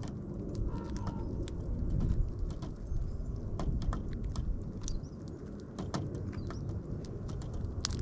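Irregular sharp clicks and taps of birds pecking and cracking seed on a snow-covered wooden feeder tray, over a steady low rumble.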